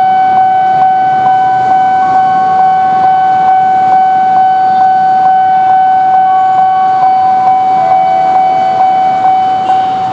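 Railway level-crossing warning alarm sounding as a train approaches: a loud, unbroken high electronic tone, with a second tone stepping up and down over it.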